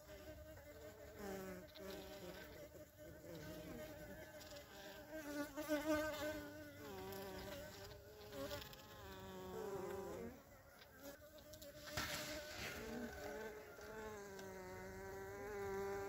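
Honeybees buzzing, several wavering wing hums overlapping and swelling and fading as bees move close.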